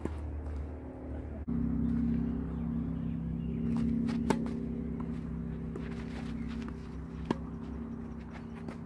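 Tennis racket striking the ball on a serve about four seconds in, and another sharp hit of the ball about three seconds later, with lighter footstep ticks between. Under them runs a steady mechanical hum, like a running engine, that starts abruptly after about a second and a half.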